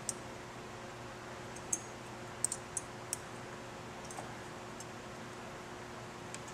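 A handful of light, sharp clicks and taps as fingers handle a motorcycle cheese wedge cover and its small bolts against the engine, a quick cluster a little over two seconds in, over a steady background hum.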